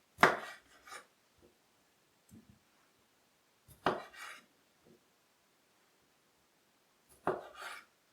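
A kitchen knife cutting seedless grapes in half on a cutting board: three sharp knocks of the blade through the grape onto the board, about three and a half seconds apart, each followed by a quieter knock or scrape.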